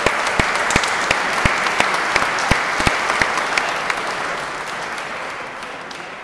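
Audience applauding, with single sharp claps standing out over the general clapping for the first few seconds; the applause dies away over the last two seconds.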